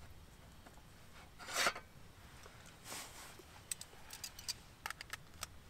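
A spoon scraping shredded chicken from a metal bowl into a camping pan: two short scrapes, then a run of light clicks and taps of the spoon against the metal.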